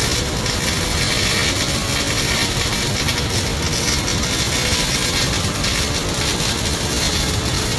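MIG welding arc crackling and hissing steadily.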